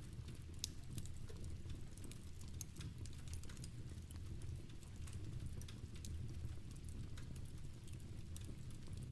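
Wood fire crackling, with irregular small pops and snaps over a low, steady rumble, and soft rain mixed in.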